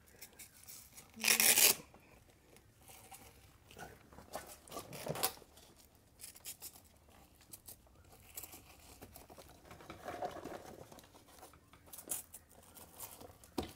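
Hook-and-loop (Velcro) straps of a boat seat bag being ripped apart and pressed together around an aluminium bench seat: a loud rip about a second in, a smaller one near five seconds, and light rubbing and rustling of straps and fabric between.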